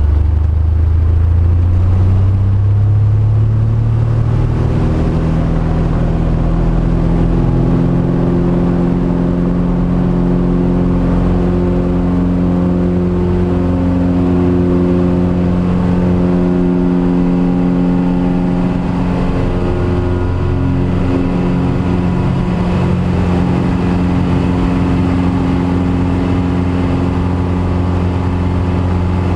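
Single-engine light aircraft's piston engine and propeller run up to takeoff power, heard from inside the cockpit: the pitch rises over the first few seconds, then holds as a steady drone with a slow beat through the takeoff roll.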